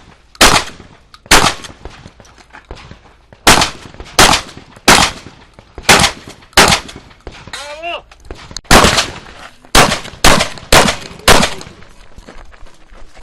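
Shotgun shots fired at irregular intervals, about a dozen in all, some following each other in quick pairs, each a sharp report with a short decaying tail.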